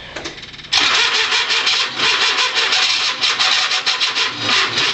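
Cub Cadet 1782 garden tractor's diesel engine cranking on the starter and trying to catch, with a fast uneven beat. It starts abruptly about a second in and stops near the end. This is a cold start after sitting for months: it is slow to fire.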